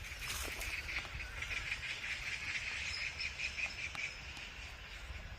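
A small bird chirping in a fast, even run of high calls, over a low rumble of wind.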